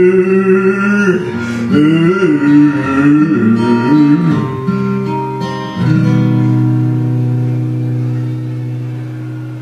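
A man sings into a karaoke microphone over a guitar-led backing track. About six seconds in, the song ends on a held chord that slowly fades out.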